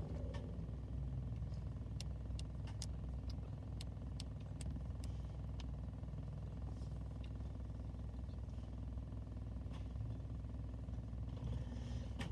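Steady low rumble of a car heard from inside the cabin, with a few light clicks scattered through the first half.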